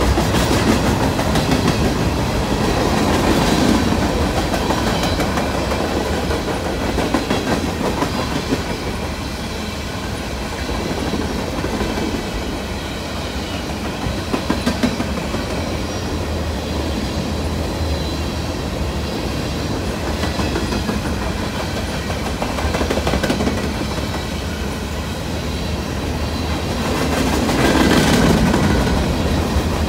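Freight train cars, gondolas and open hoppers, rolling past: a steady rumble of steel wheels on rail with clickety-clack over the rail joints. It swells and fades as the cars go by, loudest near the end.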